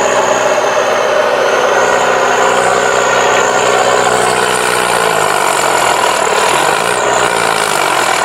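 Heavy forestry machine's diesel engine running under load, steady and loud, its pitch sagging and rising again in the second half.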